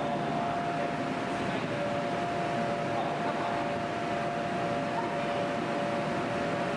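Steady drone of large electric fans, a constant hiss with a steady two-note whine over it.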